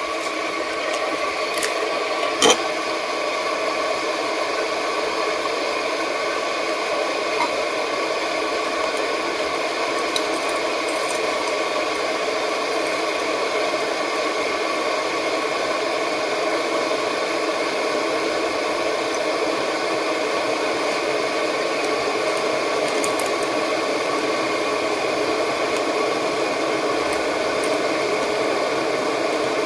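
Electric kettle heating water: a steady hissing noise from the water as it heats. There is one sharp click about two and a half seconds in.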